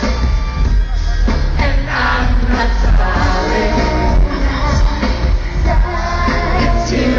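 Live pop concert music over a stadium sound system: a heavy, steady bass beat with a vocal line over it.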